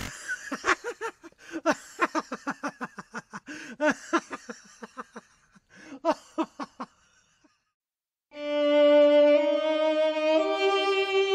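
Background music: a run of short, quick notes for about seven seconds, a brief pause, then a slow violin melody of long held notes starting about eight seconds in.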